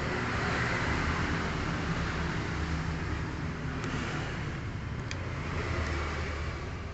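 Honda Karisma 125 cc single-cylinder four-stroke motorcycle engine running hard at high revs, freshly fitted with new magneto components.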